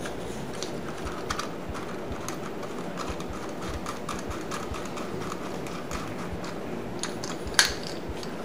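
Light, irregular clicking and tapping of a pepper mill kit's parts as the shedua-wood mill is handled and its top fitted on, with one sharp louder click near the end.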